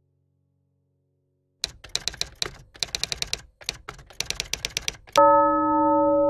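Typewriter sound effect: rapid, uneven runs of key strikes starting about a second and a half in, then a ringing bell-like ding that sustains.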